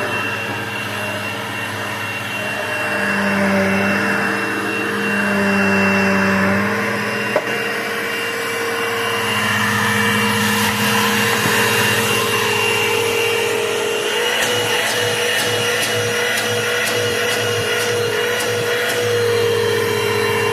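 Dirt Devil MVP upright vacuum cleaner running steadily, its motor hum shifting slightly in pitch. A sharp click comes about seven seconds in, and a series of light clicks or rattles is heard in the second half.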